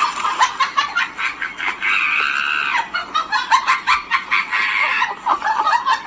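Chicken clucking: a fast run of short clucks, with one longer held call about two seconds in.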